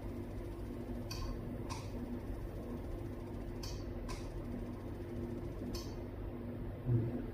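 Laser screen-repair machine running during a line-repair pass: a steady low hum with a faint pulsing tone, and pairs of short high clicks about every two and a half seconds. A low thump comes just before the end.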